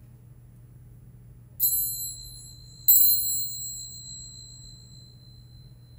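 Tingsha cymbals struck together twice, about a second and a half in and again a second later, each strike ringing out high and fading slowly; rung to clear the energy.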